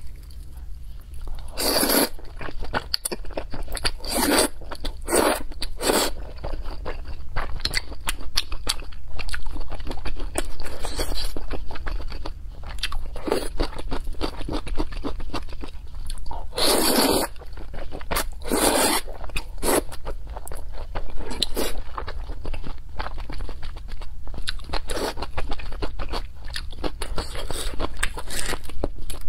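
Close-miked chewing of thick, saucy noodles, with irregular wet mouth clicks and a few louder, longer mouthful sounds now and then.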